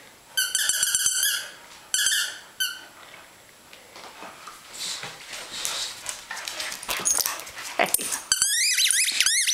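A puppy chewing a squeaky dog toy: a few short runs of high squeaks in the first three seconds, softer rustling and chewing in the middle, then a quick run of squeaks near the end.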